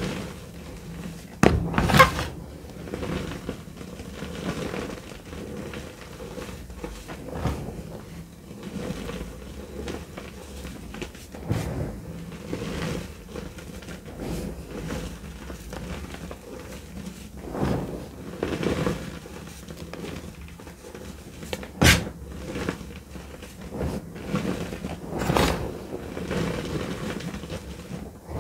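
Dry Easy Grip gym chalk being crushed and squeezed by hand in a heap of powder: irregular soft crunches and crumbling, with a few sharper crunches about two seconds in and again about two-thirds of the way through.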